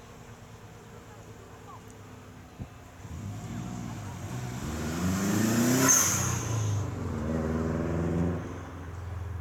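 SIAI-Marchetti SF-260's piston engine and propeller as the light aircraft manoeuvres overhead. The engine note swells and climbs in pitch from about three seconds in and is loudest, with a rushing sound, about six seconds in. It then carries on lower and steadier as the plane draws away.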